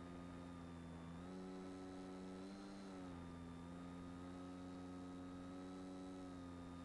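Faint steady hum with a stack of overtones from the Swift II's Graupner Compact 300Z brushless outrunner motor, carried over the video transmitter's audio. The pitch steps up a little about a second in, and again around two and a half seconds. It drops back about three seconds in as the throttle changes.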